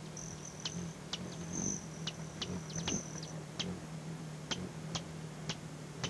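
Hummingbirds calling with sharp, high chip notes, a dozen or so at irregular intervals, over a thin high-pitched buzz that comes and goes in the first half.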